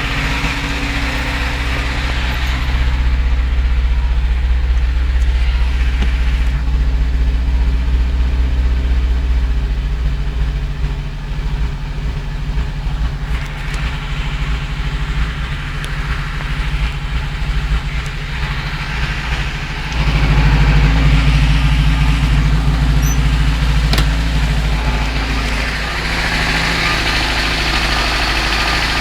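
UZAM-412 inline-four petrol engine running with a knock in it. It gets louder suddenly about twenty seconds in.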